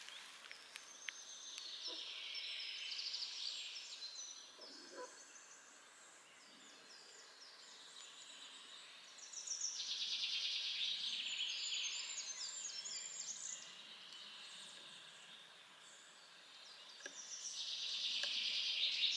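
Birds singing in a forest: a songbird gives a rapid, high phrase a few seconds long three times, about two seconds in, about ten seconds in and near the end, with fainter high calls of other birds between.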